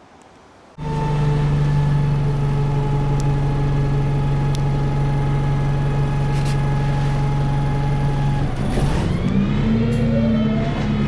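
A heavy diesel engine starts sounding abruptly and runs with a steady, loud drone. Near the end its note shifts and rises, as when it is revved or puts on power.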